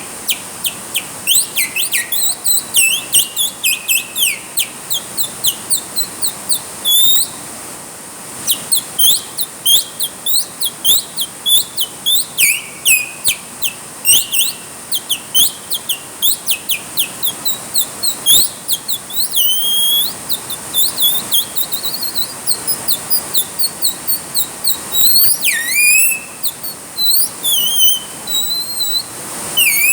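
A songbird singing a fast, continuous series of sharp chirps and downward-sweeping whistles, several notes a second, with a short pause about six seconds in, over a steady hiss of rain.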